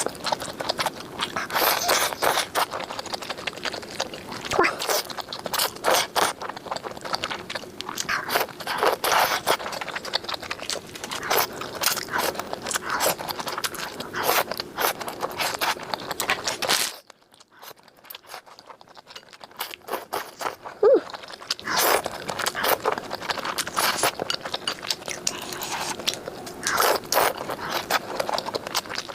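Close-miked eating of spicy noodle soup: chewing and crunchy bites in quick succession, with a quieter pause of about four seconds a little past the middle.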